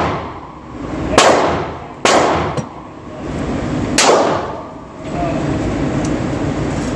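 Glock 20 10mm pistol fired three times, the second shot about a second after the first and the third about two seconds later, each shot ringing out. From about five seconds in, a steady fan-like rushing noise is left.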